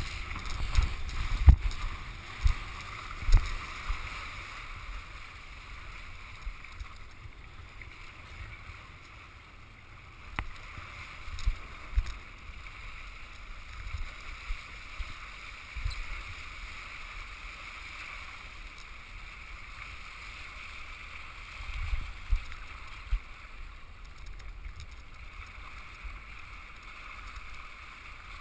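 Water hissing and rushing past an iSonic windsurf board under sail, with irregular low thumps that are heaviest in the first few seconds and come again now and then.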